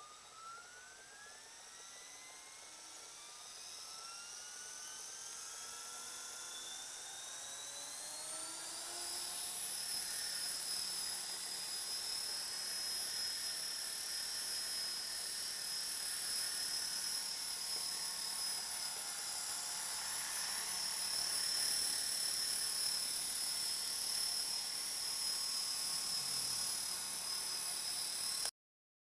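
Belt CP V2 electric RC helicopter spooling up: its motor whine rises steadily in pitch and grows louder over about the first nine seconds, then holds at a steady high whine. The sound cuts out for a moment near the end.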